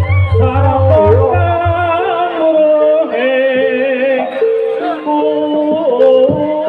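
Live jaranan gamelan music: a high, wavering melody line over a steadily repeated held note. A low pulsing hum stops about two seconds in, and short drum strokes come in near the end.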